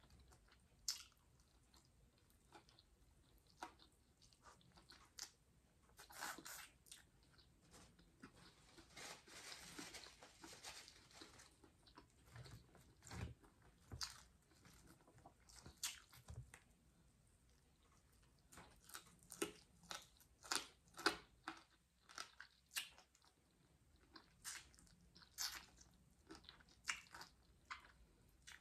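A person chewing and biting food, with irregular crisp crunches that come thickest in the last third.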